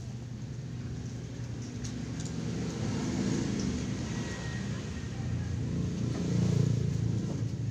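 A motor vehicle's engine rumbling low, growing louder and peaking twice, loudest shortly before the end.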